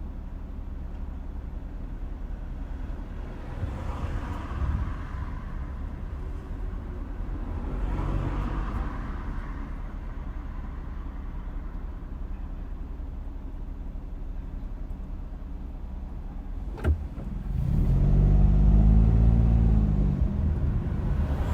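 A car driving, with a steady low rumble of road and engine noise and a few swells as traffic goes by. There is a single sharp knock, and near the end an engine gets louder for a couple of seconds, its pitch rising and then falling.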